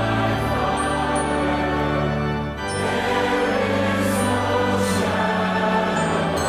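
Choral church music: a choir singing a hymn over sustained low accompaniment, with the chords changing every couple of seconds.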